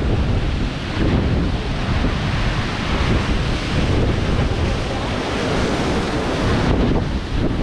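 Ocean surf breaking and washing in a steady rush, with strong wind buffeting the microphone and adding a deep rumble.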